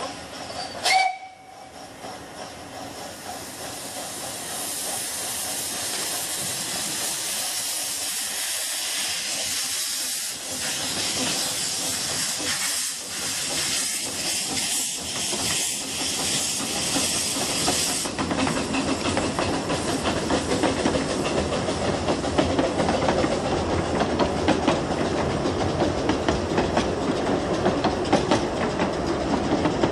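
A narrow-gauge saddle tank steam locomotive gives a short whistle blast, then pulls away with its cylinder drain cocks open, letting off a loud steady hiss of steam. The hiss stops sharply about two-thirds of the way through, leaving the rumble and clickety-clack of the carriages rolling past.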